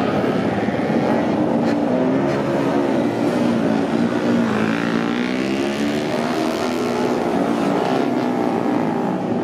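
Several 85cc two-stroke racing motorcycle engines running together, their pitches rising and falling as the riders blip the throttles.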